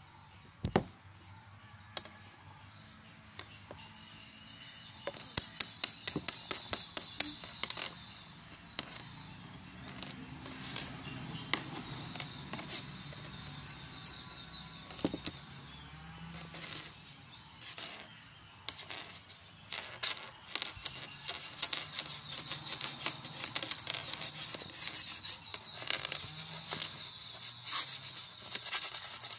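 Light clicks and knocks of a plastic ruler and small plastic pencil sharpener on a tabletop as a kitten paws and bats at them, with a quick run of clicks about five seconds in and scattered taps after. Birds chirp faintly in the background.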